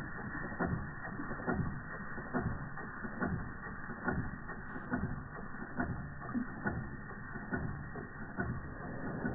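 Antique Georges Carette model 175 twin oscillating-cylinder toy steam engine running and turning a belt-driven pulley: steady mechanical clatter with a regular knock a little under once a second.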